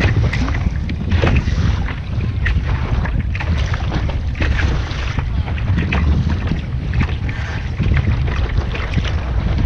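Wind rumbling hard on the microphone aboard a small sailing boat, with frequent short splashes of water against the hull.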